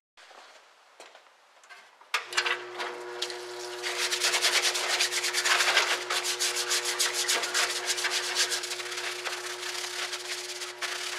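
A brush scrubbing an aluminum shield in a solvent parts washer, rapid rubbing strokes. About two seconds in, a steady hum starts under it, typical of the parts washer's pump motor, and runs on.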